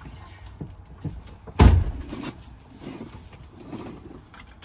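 A single heavy thump about one and a half seconds in as the driver's door of a Freightliner truck cab is shut. Softer rustling follows as the seatbelt is drawn across, with a sharp click right at the end.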